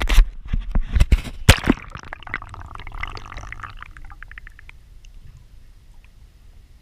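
Splashing and loud knocks as a camera goes into lake water, then muffled underwater gurgling and bubbling that fades to a low hush.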